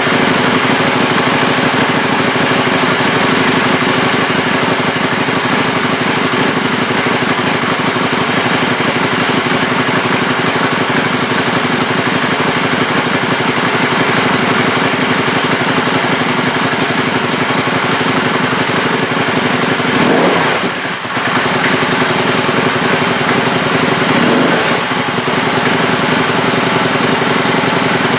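Can-Am Spyder RS's Rotax V-twin idling through a freshly fitted RLS Crusher exhaust, just started cold. Two short revs come near the end.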